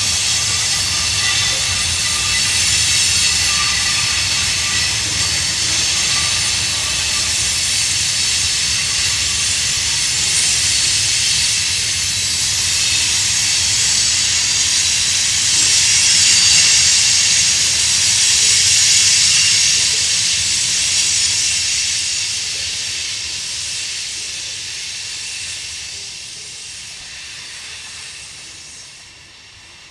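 Freight train tank cars rolling past on steel rails: a loud, steady, high-pitched hiss of wheels on rail with a faint ringing in it. It fades over the last ten seconds as the end of the train draws away.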